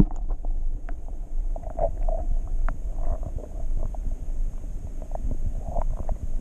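Water heard through a submerged camera: a muffled low rumble with scattered small clicks and gurgles as the hand and fish move under water.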